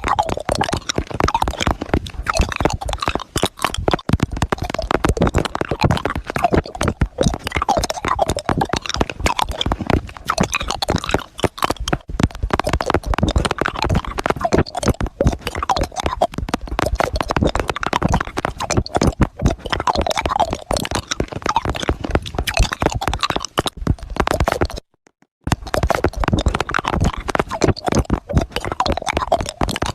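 A hard round candy being rolled around in the mouth close to the microphone: dense, rapid clicking and clacking against the teeth that keeps going, broken by a short silence about 25 seconds in.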